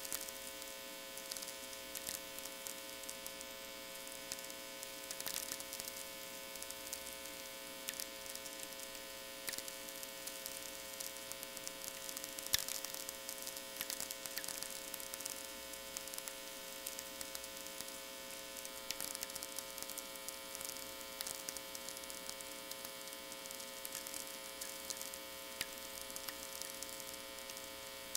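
VLF natural-radio receiver audio: sferics, irregular crackling clicks from distant lightning, over a steady power-line hum with many overtones. One click stands out louder about twelve seconds in.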